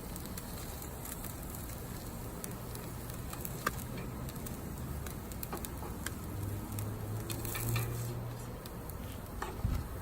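Fish fillets sizzling and crackling on a hot grill, with scattered sharp ticks over a low hum.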